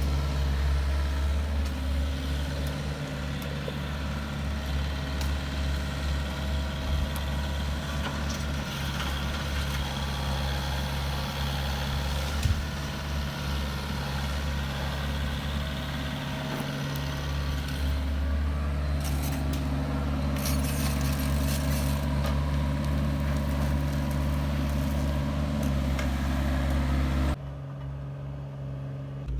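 Heavy diesel engine of road-construction machinery running steadily with a low drone; the sound drops off abruptly near the end.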